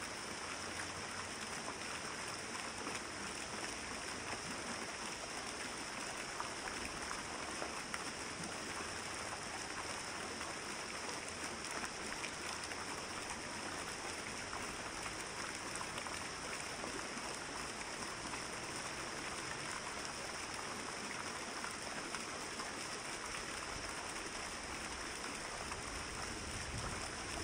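Steady, even hiss of falling water splashing, unchanging throughout.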